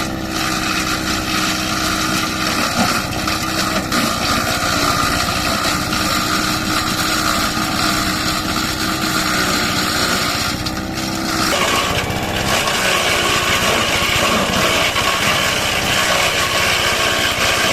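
JT-5700 grass chopper running with its small engine droning steadily as it shreds cassava stems. About eleven seconds in, the engine note dips and then recovers, and the sound turns harsher after that.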